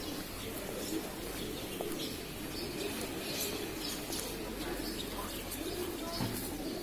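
Pigeons cooing repeatedly, low rounded calls over a steady background of street ambience.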